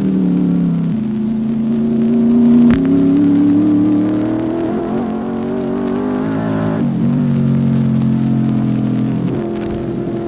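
Scarab Formula Libre race car's Chevrolet V8 running hard, its pitch climbing and falling several times with sudden drops and steps, as with gear changes and lifting off. A single sharp click about three seconds in.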